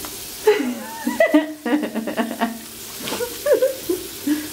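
Steady hiss of hands being washed, soapy skin rubbing and water at the sink, while a voice hums or sings wordless notes over it.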